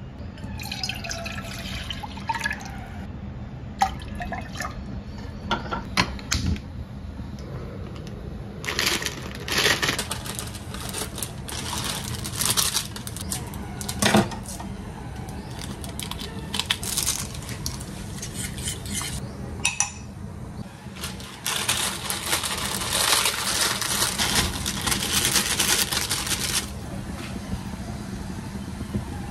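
Water poured and sloshing into a steel cooking pot on a gas stove, with a few clinks of the pot and utensils against the stove.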